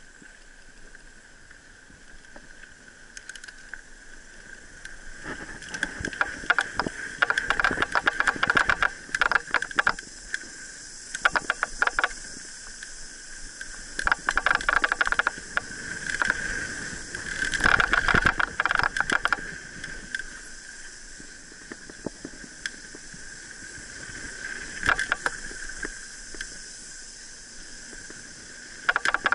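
Mountain bike riding down a bumpy dirt trail: the bike and its parts rattling and clattering over roots and bumps, over a steady high buzz. The clatter comes in dense runs several times, the heaviest around the middle, after a quieter start.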